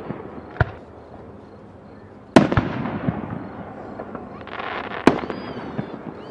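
Aerial firework shells bursting: three sharp booms, a lighter one just after the start, then loud ones about two and a half and five seconds in, each trailing off.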